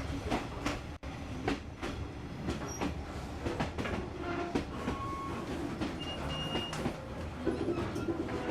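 Train running along the track: a steady rumble with irregular clacks of the wheels over the rail joints, and a few brief, faint squeals from the wheels.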